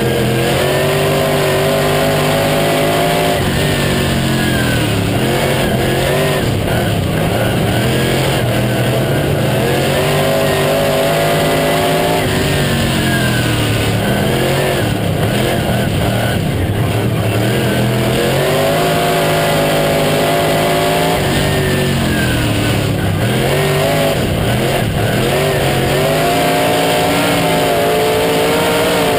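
Late model stock car's V8 engine heard from inside the cockpit at racing speed. It climbs in pitch and holds high down each straight, then drops off as the car lifts into the turns, in a cycle about every eight to nine seconds.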